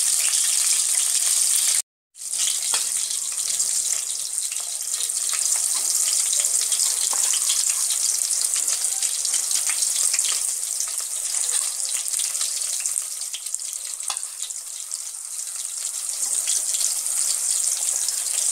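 Gram-flour-battered soya chunks frying in very hot oil: a steady, high sizzling hiss with small crackles, turned now and then with a spatula. The sound cuts out briefly about two seconds in.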